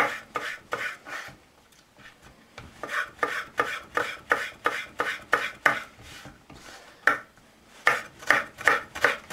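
Chef's knife cutting slices of peeled fresh ginger into thin strips on a wooden cutting board: quick, even strokes of the blade through the ginger onto the board, about three a second, pausing twice for a second or so.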